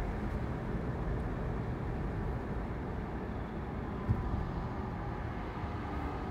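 Low, steady cabin rumble of a 2016 Subaru Legacy idling while barely rolling or stopped, with a single thump about four seconds in.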